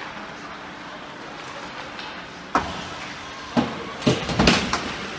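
Ice hockey play heard in the rink: sharp knocks and heavy thuds against the boards, one about two and a half seconds in, another a second later and a quick cluster near the end, over the steady rink background.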